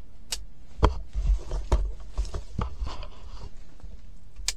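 Camouflage clothing rustling right against the microphone, with several sharp clicks and knocks from handling gear, the loudest about a second in and the last near the end.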